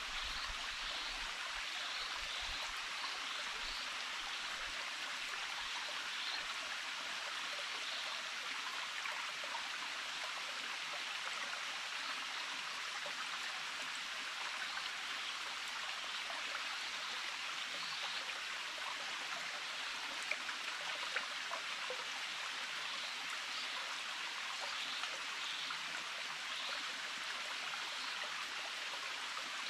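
Small stream running steadily, with a couple of faint clicks about two-thirds of the way through.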